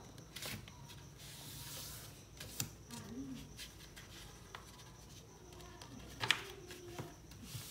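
A sheet of paper being folded and creased by hand against a wooden tabletop: soft rustling, a brushing slide about a second and a half in, and small taps and clicks, the sharpest about six seconds in.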